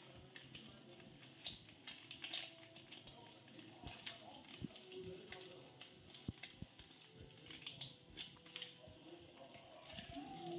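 Faint sizzling of popcorn kernels heating in oil in a hot kadai, with scattered sharp ticks and crackles; the kernels are not yet popping.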